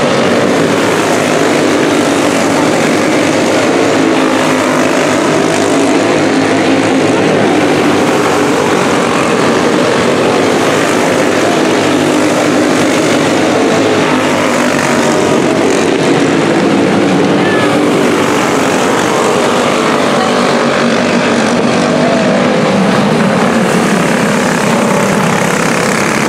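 Several junior champ racing karts' small engines running hard together as they race around a dirt oval, their pitches wavering up and down.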